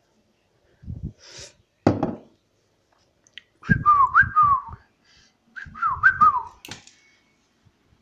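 A person whistling close by: two quick runs of about three short falling whistles, roughly a second apart, with a sharp knock about two seconds in and soft handling thumps along with the whistles.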